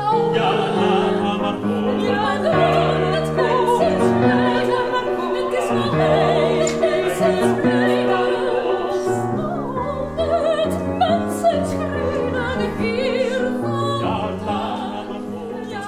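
Operatic singing on stage with sustained notes and vibrato, over a low instrumental accompaniment.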